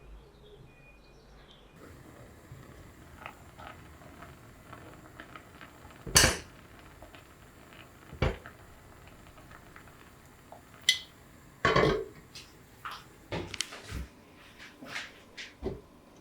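Dishes and utensils being handled in a kitchen: scattered clinks and knocks, with the loudest about six seconds in and again near twelve seconds, then a quick run of smaller knocks near the end.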